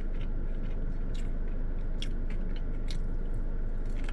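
A person chewing a fried boneless chicken wing close to the microphone, with short crunchy clicks every half second or so, over a steady low hum.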